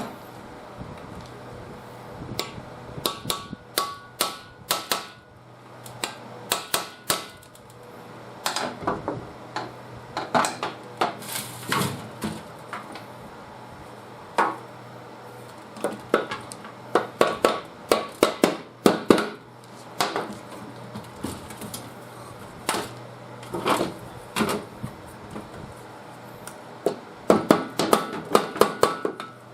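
Metal tools knocking and tapping on the parts of a seized small engine being taken apart, in quick runs of sharp strikes, some with a brief metallic ring.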